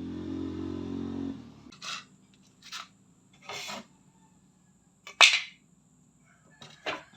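Power drill running steadily, stopping about a second and a half in; then a few scattered knocks and clatters, the loudest a sharp knock about five seconds in.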